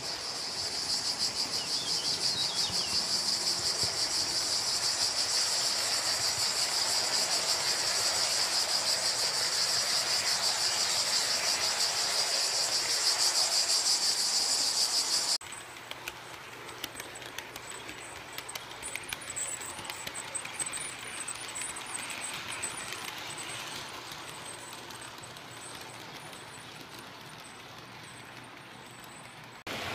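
Loud, steady high chirring of insects through the first half, cut off abruptly about halfway. It gives way to the quieter running of an HO-scale model train, with a low hum and scattered faint clicks.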